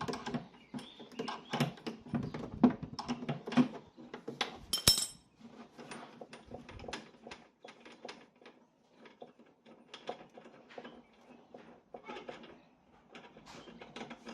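Hand tools and metal parts clinking and clicking in quick irregular taps, with one sharp ringing clink about five seconds in; the taps thin out and get quieter after that.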